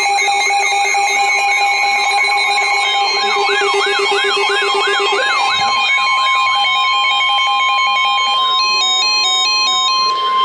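NOAA Weather Radio-style emergency alert tones: a steady electronic warning tone layered with other alarm sounds. Rapid wailing sweeps, about two or three a second, are strongest from about three to six and a half seconds in, and an alternating two-pitch beeping comes in near the end.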